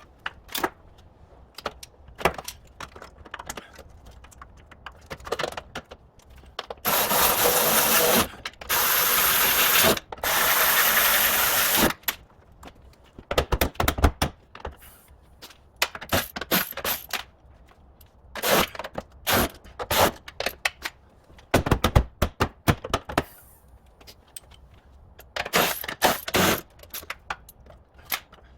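Workshop assembly on a car's front end: scattered metallic clicks and knocks as parts are handled and fitted, with three steady bursts of a power tool, each about a second long, close together in the first half.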